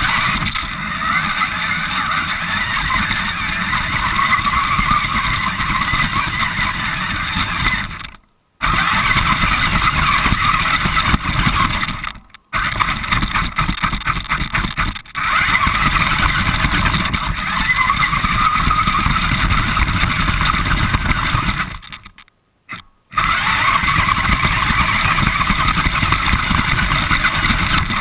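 Radio-controlled car driving, heard from a camera mounted on the car: a steady motor and drivetrain whine over the rumble of the wheels on the ground. It cuts out abruptly to silence three times, about 8, 12 and 22 seconds in.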